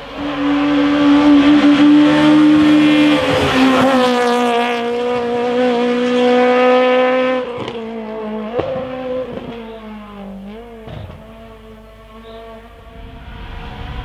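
Rally car engine held at high revs at full throttle, with a slight drop in pitch about three and a half seconds in. At about seven and a half seconds it gets quieter, and the revs dip and rise several times with short throttle blips through a hairpin, then fade.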